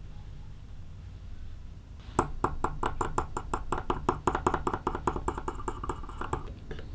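Small wire whisk beating an egg yolk in a glass bowl: a rapid, even clinking of the wires against the glass, about eight strikes a second, starting about two seconds in.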